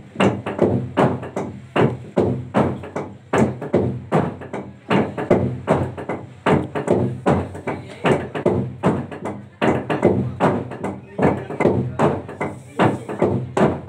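A large hollowed-out log drum beaten by a row of players with wooden beaters, giving an even, fast rhythm of wooden thuds.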